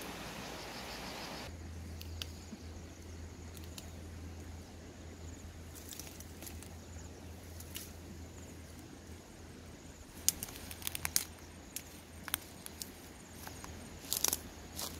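Leafy twigs snapping and crackling as they are broken off a shrub by hand: scattered sharp snaps, coming in quick clusters a little after the middle and again near the end, over a low steady hum. A steady hiss cuts off about a second and a half in.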